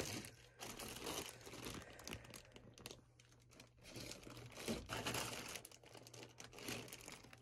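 Plastic zip-top bags of small toys crinkling as they are picked up and shifted by hand, in irregular rustling bursts with a short lull midway.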